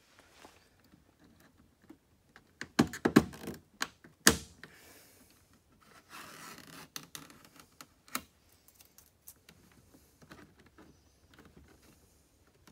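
Plastic push-pin clips being pressed into a carbon fiber rear diffuser: a cluster of sharp clicks and knocks about three to four seconds in, then scraping of plastic and a single click around eight seconds.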